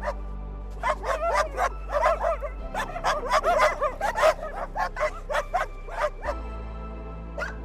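A dog barking in quick runs of short barks, several a second, with a pause near the end, over background music with a steady low drone.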